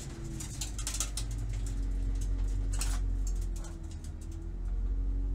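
2014 Ford Boss 302S's 5.0-litre V8 running low and steady near idle in second gear as the car rolls at walking pace. Gravel under the tyres gives scattered sharp clicks, a cluster in the first second and a sharper one about three seconds in.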